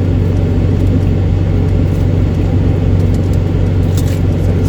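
Steady low hum of a running motor, with a faint click about four seconds in.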